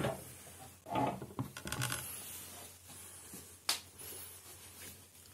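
Handling noise of a computer motherboard being moved and turned over on a wooden table: light clicks and taps from its plastic and metal parts, with one sharp click a little past halfway.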